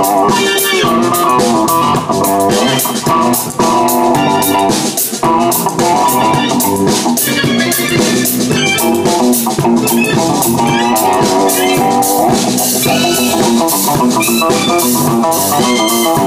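A rock band playing live: guitar over a drum kit, with frequent drum and cymbal hits.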